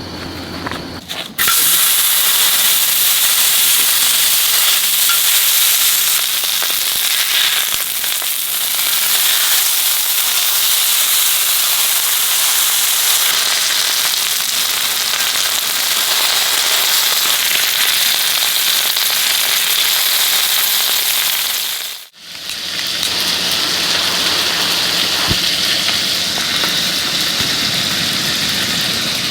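Beef sirloin sizzling loudly as it sears on hot metal. The sizzle starts about a second in, cuts out abruptly about 22 seconds in, and picks up again at once.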